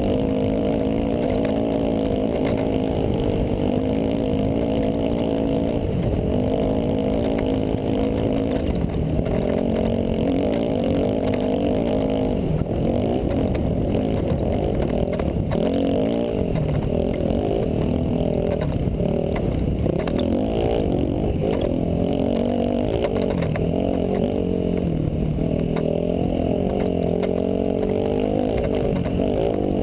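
Dirt bike engine running hard, its revs rising and falling again and again with throttle and gear changes.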